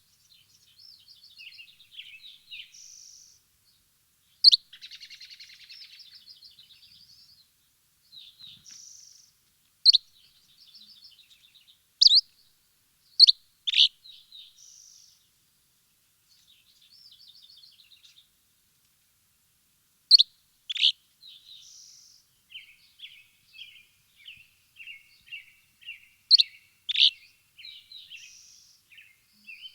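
Songbirds chirping and singing: a sharp, loud chirp every few seconds between softer trills and warbles, and from about two-thirds of the way through a run of short repeated notes, about two a second.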